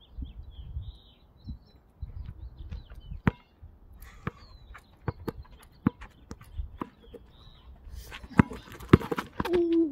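A basketball bouncing on asphalt in scattered, irregular dribbles, with two louder bounces near the end. Birds chirp faintly during the first second or so.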